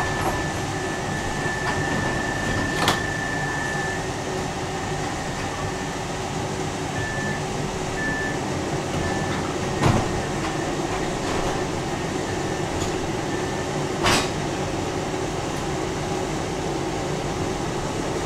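Tram running along the track, heard from inside the car: a steady rumble and hum, with a thin high whine that holds for the first few seconds and then comes and goes. Three sharp clacks are spread through it.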